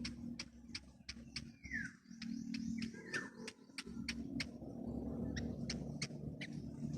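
Small birds chirping: rapid short, high chirps about three or four a second, with a few downward-sliding calls in the first half and a rustling noise that grows louder about halfway through.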